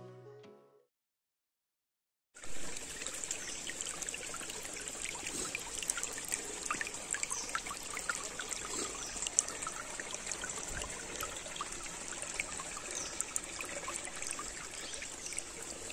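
Soft music fades out, followed by a moment of silence. Then a shallow rocky stream starts trickling and splashing over stones, with a thin steady high tone above it.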